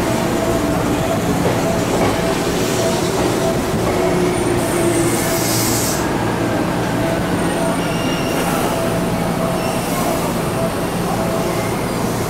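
Seibu 10000 series electric limited express train running, heard from inside the passenger car: steady rumble of wheels on rail with a humming whine from the traction motors and gears. A brief high hiss of wheel squeal about five seconds in.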